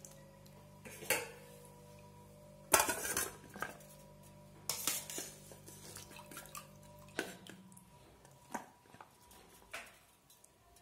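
A wire spider skimmer and stainless steel bowls clinking and knocking as soaked cauliflower florets are scooped out of water and dropped into a second bowl. There are about six knocks, the loudest about three seconds in, and the steel rings briefly after each. A faint low steady hum underneath stops about seven seconds in.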